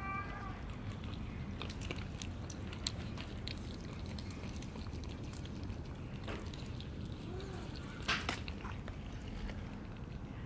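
Cats crunching dry kibble from a plastic tray, heard as scattered sharp clicks with a louder cluster about eight seconds in. A kitten gives a short rising meow right at the start.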